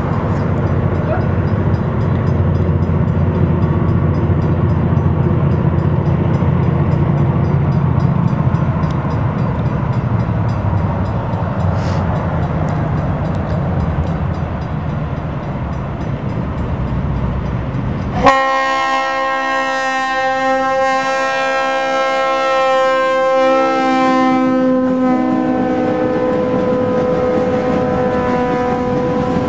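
Freight train's EMD diesel locomotives approaching with a steady low engine rumble and faint horn sounds. About 18 seconds in, the lead CSX GP15-1's fouled horn comes in with a loud, long sustained blast as the locomotives reach the grade crossing and pass, a warning laid on as cars cross close in front. A few of its tones sag slightly in pitch near the end.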